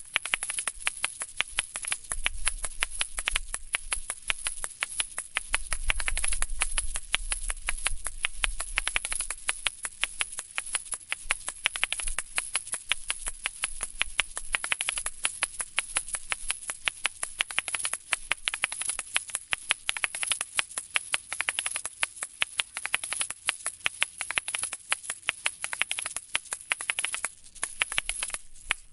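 Asalato (kashaka) being played: two pairs of shakers on cords are swung and flipped so the shells click against each other and rattle in a fast, continuous rhythm.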